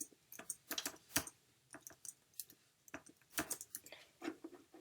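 Typing on a computer keyboard: a run of irregular key clicks, some pairs close together.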